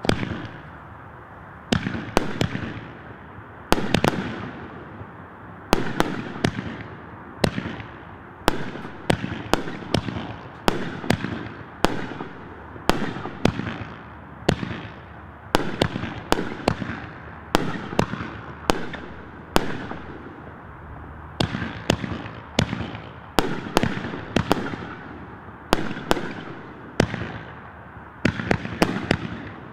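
Multi-shot consumer fireworks battery (cake) firing shot after shot, about one sharp bang a second, sometimes two in quick succession, each followed by a short fading tail.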